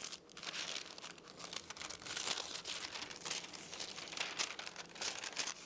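Greaseproof paper crinkling and rustling in irregular little crackles as it is rolled and twisted by hand into a cone for a piping bag.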